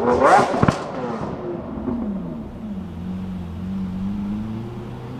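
Lamborghini Aventador's V12 revving with a few sharp exhaust cracks in the first second. The revs then fall away and it settles into a low, steady note as the car rolls in.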